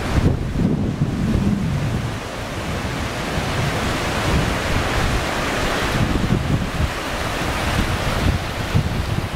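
Ocean surf breaking and washing over the shallows in a continuous rush, with wind buffeting the microphone as an uneven low rumble.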